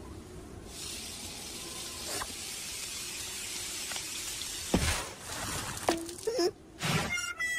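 Cartoon sizzling hiss of a corn cob heating up, swelling about a second in and holding steady. Near five seconds a sudden burst with a falling tone as the corn pops, then short comic sound effects, with music starting near the end.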